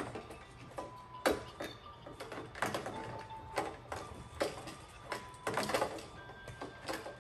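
Irregular clicks, taps and clatter of Maltese puppies scampering and tussling with toys on foam play mats, with a few short steady tones in between.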